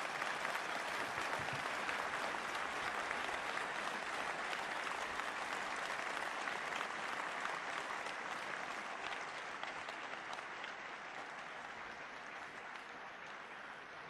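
A large audience applauding steadily in response to a speech, the clapping gradually fading toward the end.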